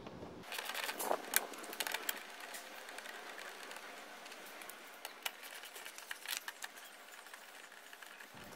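A ratchet wrench with a 10 mm socket clicking as it loosens a seat bolt, a quick run of clicks, followed by scattered light metal clicks and taps as the bolts are turned out by hand and lifted out.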